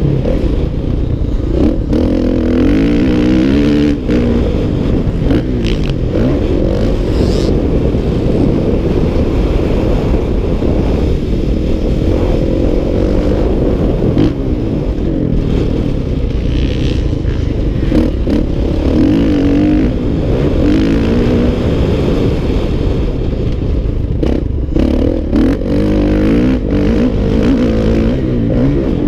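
Dirt bike engine revving up and falling back again and again as it accelerates and slows along a motocross track, with scattered sharp knocks over the engine sound.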